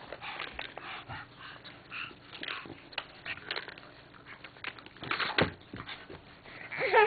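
Dog panting and sniffing at close range: a run of short breathy puffs, with a louder puff about five seconds in and a brief whimper near the end.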